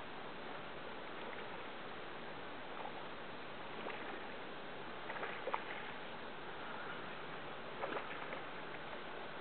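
Kayak paddling in calm marsh water: a few brief paddle splashes and drips about five and eight seconds in, over a steady hiss.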